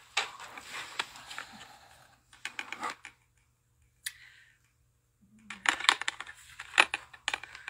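Irregular clicking and crinkling of a small package being handled and opened, with a quiet gap of about two seconds in the middle.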